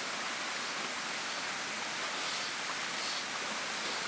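Steady rushing hiss of a shallow stream's flowing water.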